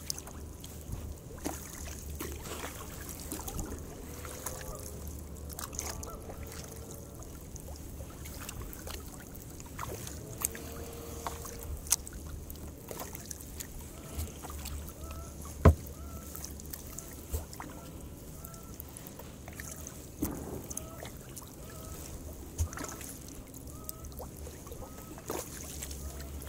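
Kayak paddling: paddle blades dipping and splashing in calm water, with a few sharp knocks, the loudest about halfway through.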